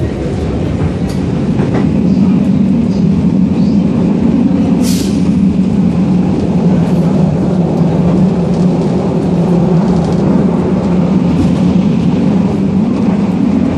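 Moderus Gamma low-floor tram running, heard from inside the passenger compartment: a steady low rumble of motors and wheels on rails that grows louder over the first two seconds, then holds. A brief hiss comes about five seconds in.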